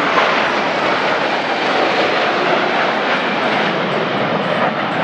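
Four F/A-18 Hornet fighters in a low formation pass, their twin turbofan jet engines giving loud, steady jet noise that swells at the start.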